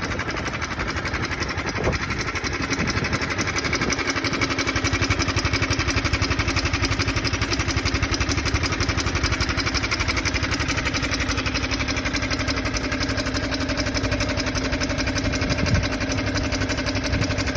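A used car's engine running at idle, with a fast, even ticking beat all the way through it. This is the abnormal engine noise the car was found to have.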